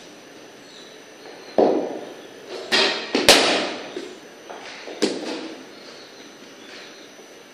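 Cricket bat and leather ball knocks in a concrete-walled practice net: a knock about one and a half seconds in, a close pair of sharp cracks near the middle, the second the loudest, and another about five seconds in, each ringing off the walls.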